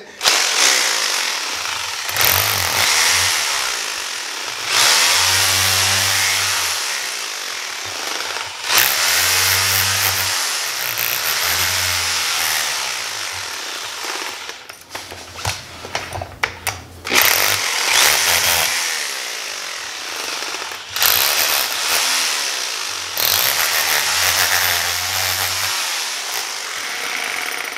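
Power drill with a small bit boring into a bowling ball around the thumb insert, run in several bursts with short pauses, its motor speed rising and falling under load.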